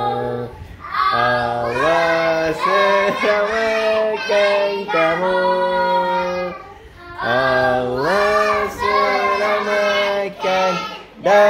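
Children singing a birthday song in chorus, with a short break in the melody past the middle.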